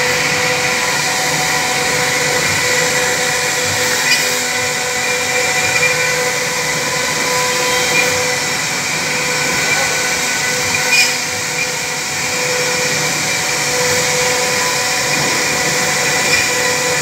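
CNC router's electric spindle running at speed while its bit carves a wooden relief panel: a steady high whine over the hiss of cutting, with a few short ticks.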